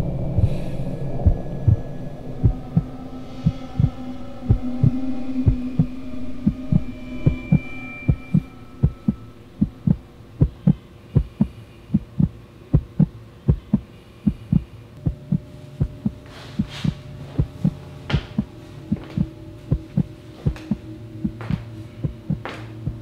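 Heartbeat sound effect: regular low thumps about twice a second over a low droning hum. About halfway through the thumps grow fainter and sharper ticks come in.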